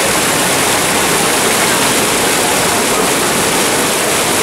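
Muddy flash floodwater pouring and tumbling over a grassy ledge: a loud, steady rush of water.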